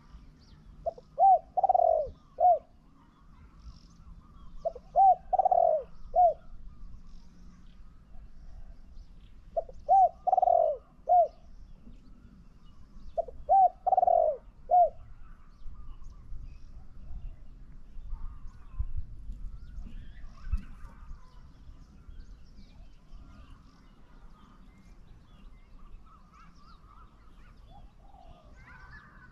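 Spotted dove cooing: four phrases of three or four notes each, about four seconds apart, all in the first half. Small birds chirp faintly throughout.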